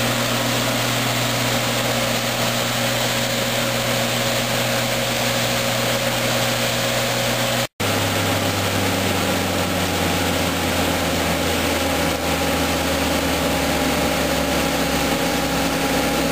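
John Deere C670 combine harvester running steadily, its engine and machinery giving a continuous drone with several steady tones. The sound drops out for an instant about halfway through, then carries on with a lower, deeper note.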